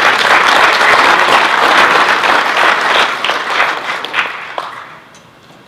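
Audience applauding: many hands clapping together, thinning and dying away about four and a half seconds in.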